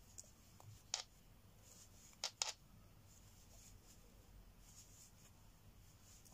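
Near silence: faint rustling and scratching of yarn drawn over a crochet hook as Tunisian crochet loops are picked up. There is a short click about a second in and two more close together a little past two seconds.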